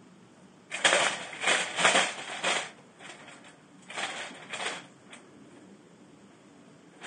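Havahart wire cage trap going off: the spring-loaded doors slam shut with a sudden metallic clatter about a second in. A grey squirrel is caught inside, and the wire cage rattles in several loud bursts for about two seconds, with a second, shorter spell of rattling about four seconds in.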